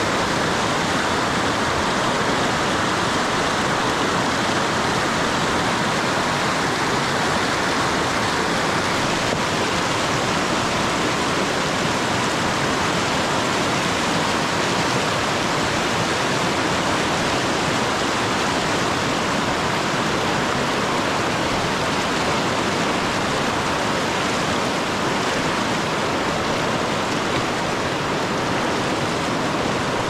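Fast mountain river rushing over rocks: a steady, loud, even wash of water noise with no breaks.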